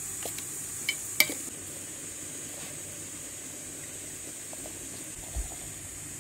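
A few sharp clinks of glass and metal in the first second and a half, then hot water running in a thin stream from a samovar tap into a glass teapot's steel infuser full of loose black tea, over a steady high hiss.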